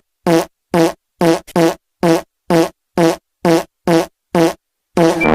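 A rapid string of about a dozen short fart sounds, roughly two a second, each cut off by dead silence. A longer, drawn-out fart starts near the end.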